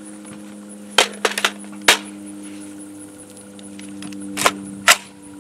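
Sharp metallic clacks of an AR-15-pattern pistol being loaded: a magazine seated into the mag well, then the charging handle worked and the bolt carrier slamming forward to chamber a 300 Blackout round, here feeding cleanly. A cluster of clicks comes about a second in, then two more near the end, over a steady low hum.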